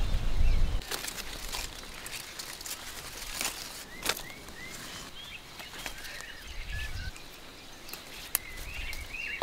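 Small birds chirping in short, scattered notes, over occasional sharp snaps and rustles as green beans are picked from the vines and dropped into a plastic basket.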